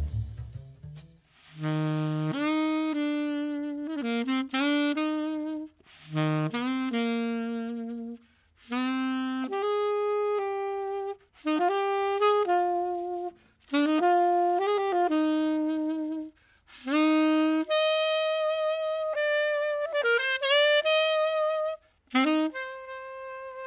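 Unaccompanied alto saxophone playing a slow solo melody in phrases of a few seconds, with short silent pauses between them. The longer held notes after the middle carry vibrato.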